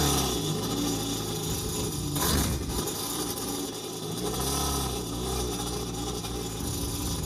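Kawasaki KSRD reverse-bucket actuator on an Ultra 310 jet ski running in spells as it drives the reverse bucket up and down, with a clunk about two seconds in. The bucket is cycling well with the newly fitted assist spring.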